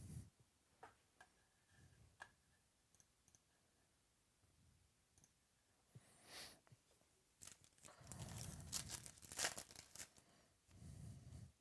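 Foil trading-card pack wrapper being torn open and crinkled, with a few light clicks of cards being handled before it; the tearing and crinkling is loudest about eight to ten seconds in.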